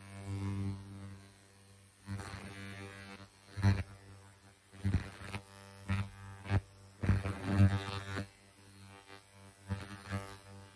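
Handheld electric facial beauty device running in ion mode, buzzing steadily as it is moved over the face. Short handling knocks and rubs come several times, loudest between about 3.5 and 8 seconds in.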